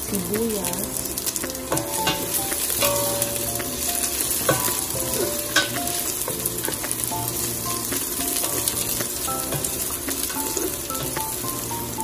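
Onion and garlic sizzling in hot oil in a stainless steel stockpot, with a spatula stirring and knocking against the pot in scattered clicks and taps.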